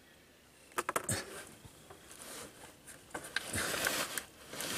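Transmission pan on a 1993 Chevy K3500 being worked loose from below: a few sharp metal clicks about a second in, then a hissing splatter as transmission fluid spills from the tipped pan, with more clicks.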